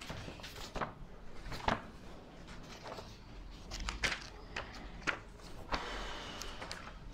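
A scatter of light knocks, clicks and rustles from things being handled on a desk, the sharpest about two seconds in and again around four and five seconds, with a brief rustle near six seconds.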